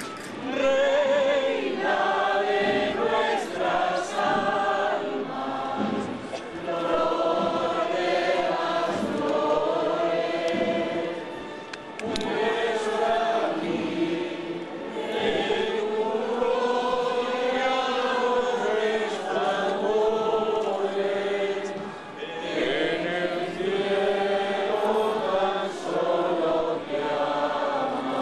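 A group of voices singing a slow hymn together, in long held phrases with short breaks between them.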